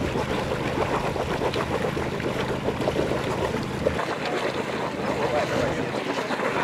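Passenger boat's engine running with a steady low hum, under rough wind noise buffeting the microphone.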